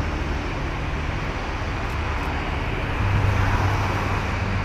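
Boeing 737-700's CFM56 jet engines running at taxi power: a steady rushing whine over a low hum, which grows louder about three seconds in.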